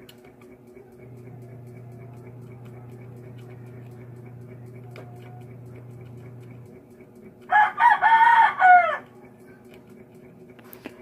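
A rooster crowing once, loud, about a second and a half long, starting about seven and a half seconds in; the call holds its pitch, then falls away at the end. Before it, a steady low hum runs from about a second in until just before the crow.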